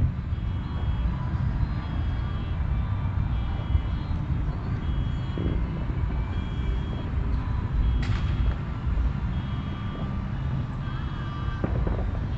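A vehicle's engine rumbling low while its reversing alarm beeps about once a second, with one sharp bang about eight seconds in.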